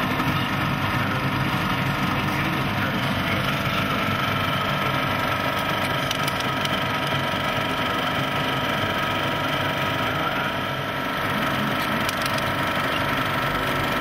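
Cinemeccanica CX21H 35mm cinema projector running with film laced through it: a steady, even mechanical running noise from its sprockets and the intermittent movement pulling the film at 24 frames per second.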